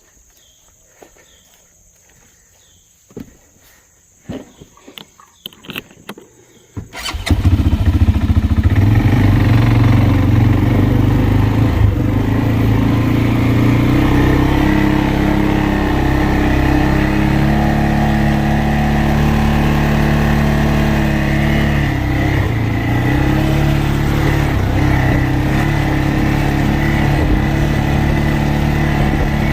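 A four-wheeler's engine starts about seven seconds in and then runs steadily and loudly as it is ridden, its pitch shifting a little. Before it starts there are a few knocks and clicks over a faint, steady insect trill.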